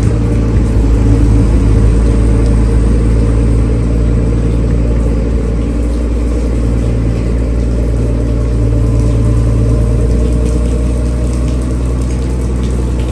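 Engine of a boat travel lift running steadily, a low, even drone, while it hauls a catamaran out of the water.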